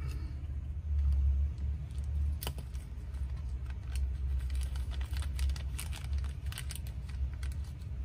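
Clear plastic parts bag being handled and opened: crinkling and rustling with many small sharp clicks, starting after one sharp click about two and a half seconds in, over a low steady rumble in the background.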